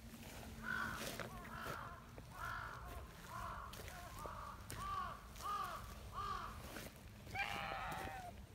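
Silver tabby cat giving a run of short meows, each rising and falling in pitch, about ten in quick succession, ending in one longer, louder meow near the end.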